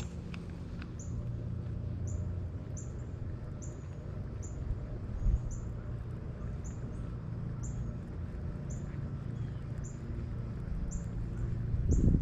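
A bird calling a short, high chirp over and over at an even pace, about three times every two seconds, over a steady low rumble. A brief thump comes about five seconds in.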